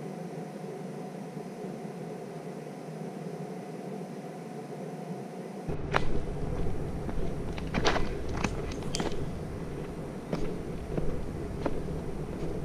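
Steady hiss for the first half, then an abrupt cut to footsteps on a woodland trail: irregular sharp clicks and crunches of boots on rock and ground.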